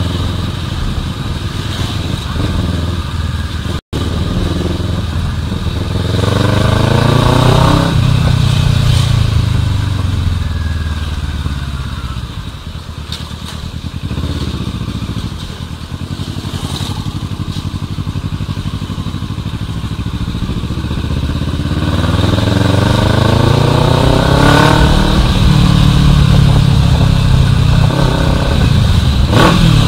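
Kawasaki Versys 650's parallel-twin engine running on the move, its pitch climbing twice as the bike accelerates and dropping back in between. The sound cuts out for an instant about four seconds in.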